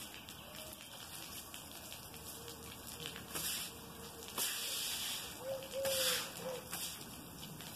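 Push-style pool brush scrubbing the dry plaster of an empty pool in strokes: a few scratchy swishes from about three seconds in, the loudest two near the end.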